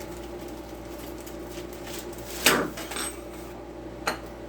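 Small hard objects being handled: a few sharp clicks and clatters, the loudest about two and a half seconds in, over a steady low hum.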